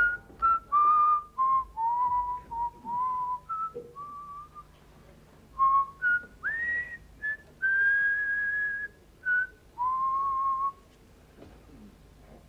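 A man whistling a tune by mouth: a string of held and short notes, some sliding up into pitch, ending about eleven seconds in.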